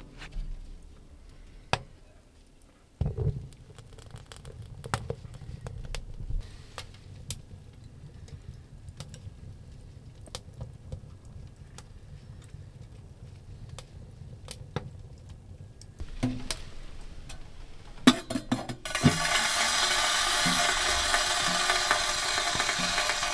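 Wood fire burning in a small stainless steel tent stove: a low rumble of the draft with scattered crackles and ticks. About nineteen seconds in, a loud steady hiss takes over.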